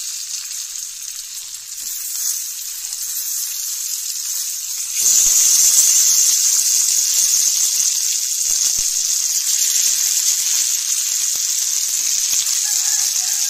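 Hot oil and spice masala sizzling in a karahi as fried katla fish pieces go in. The sizzle jumps louder about five seconds in as more pieces are added, with a few light knocks.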